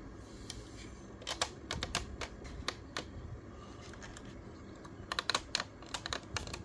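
Quick sharp clicks and taps from a 1/18 diecast model car being handled and turned over, in two clusters, about a second in and again about five seconds in.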